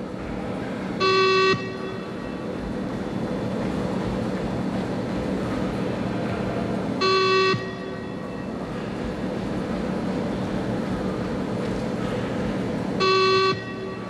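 20 m shuttle run (beep test) timing beeps: three short electronic beeps about six seconds apart, each marking the moment the runner must reach the next line. A steady background hiss lies between them.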